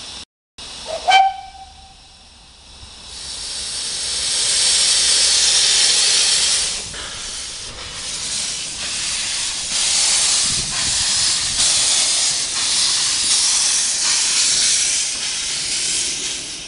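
Hunslet-built Wren-class narrow-gauge steam locomotive giving a short toot on its whistle about a second in. It then blows loud, pulsing steam hiss from its open cylinder drain cocks as it moves off, fading near the end.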